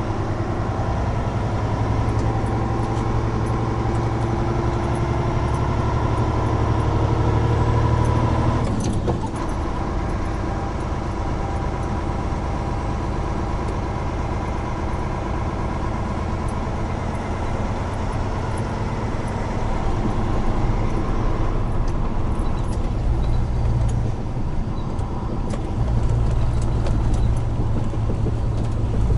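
Large truck's diesel engine running under way, heard inside the cab along with road noise, a steady hum. About nine seconds in the engine note drops away and the truck runs on more quietly.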